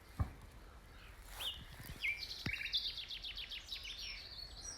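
Common nightingale singing: a couple of high whistled notes, then a fast run of repeated notes. A thump just after the start.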